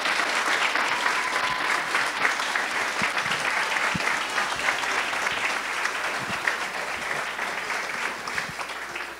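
Guests applauding, a dense round of clapping that fades near the end.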